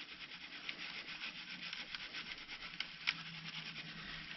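Worm castings being sifted through a quarter-inch wire-mesh screen: a steady, scratchy rustle of grit and coir scraping over the mesh, with many small ticks of particles.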